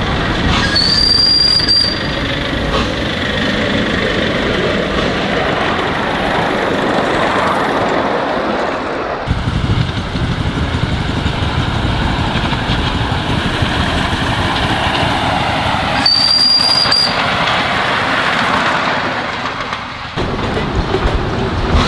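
Miniature ride-on steam locomotive running on its track, sounding a short, high whistle toot about a second in and again about sixteen seconds in.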